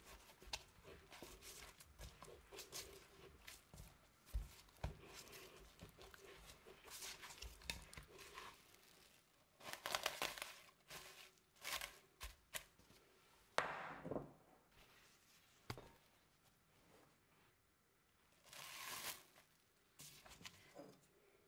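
Faint, irregular kitchen handling sounds: short rustling and scraping bursts with a few light knocks, from food being prepared by hand.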